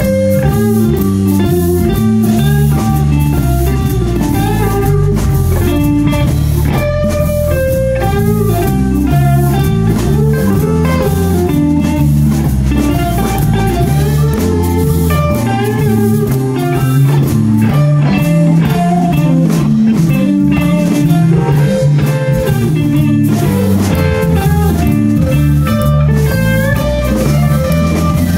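Live blues band playing a slow blues, with electric guitar lines over bass and drums.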